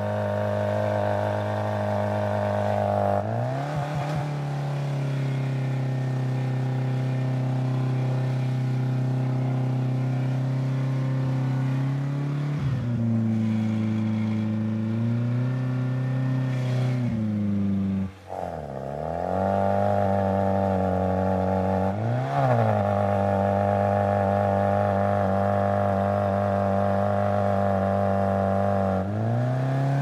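Fire engine's auxiliary pump running steadily, its engine changing speed in steps. The pitch drops a few seconds in and rises again near the middle. About two-thirds through it dips sharply and nearly cuts out before picking back up, then steps down again near the end.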